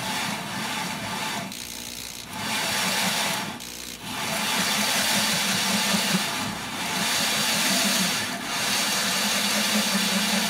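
Power drill with a diamond hole saw grinding through a porcelain sink: a steady motor hum under a gritty grinding noise, easing off twice briefly in the first few seconds.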